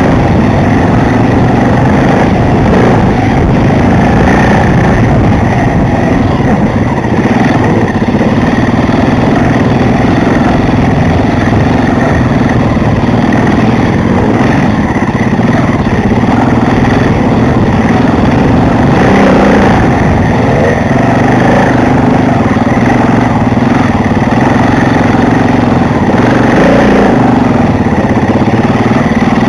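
Enduro motorcycle engine running under way on a dirt trail, loud and close as heard from a camera on the bike, its pitch shifting a little with the throttle.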